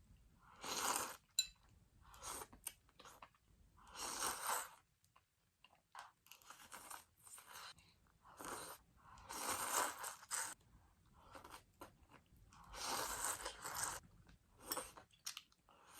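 Close-miked eating of ramen and chicken sausages: mouth sounds of biting and chewing in a series of short noisy bursts, a louder one every two to three seconds, with small clicks in between.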